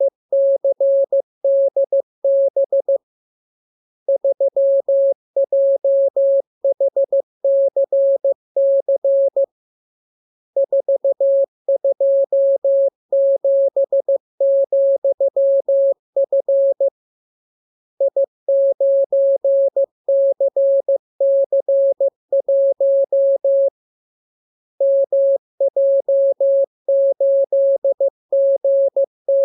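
Morse code practice signal: a single steady tone keyed on and off into dots and dashes, sent as groups of characters with pauses of about a second between groups.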